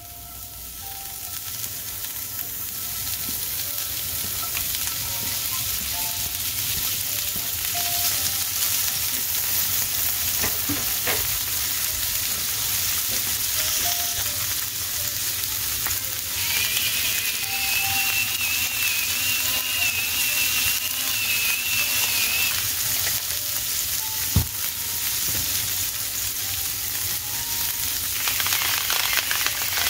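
Diced bell pepper, red onion and turkey sizzling in hot oil in a cast-iron skillet. The frying swells over the first few seconds as the food goes in, then holds steady. Midway a thin wavering whistle runs for several seconds, a single sharp knock follows a little later, and near the end a salt grinder adds a brief gritty grinding.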